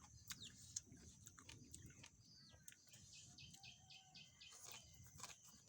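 Faint birds chirping in short calls, with scattered small clicks and a faint steady high hiss.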